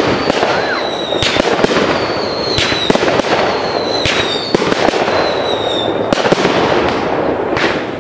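Fireworks going off: dense, continuous crackling with many sharp bangs, and several high whistles that each fall slightly in pitch.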